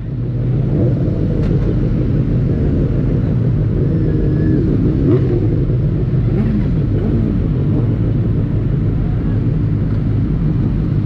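Benelli TNT600's inline-four engine running at a steady speed, a low even drone with no revving.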